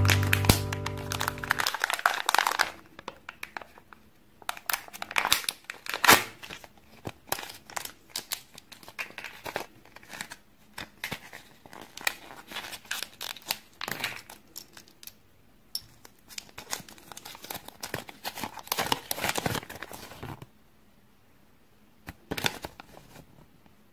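Hands working open a small plastic Kinder Joy toy capsule: irregular clicks of plastic and crinkling and tearing of wrapping, with a short lull near the end and then a paper leaflet rustling as it is unfolded. Background music fades out in the first two seconds.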